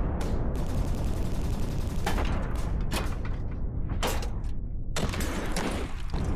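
A fusillade of rifle fire: many guns shooting at once in a dense, steady crackle, with clusters of sharper shots about two, four and five seconds in.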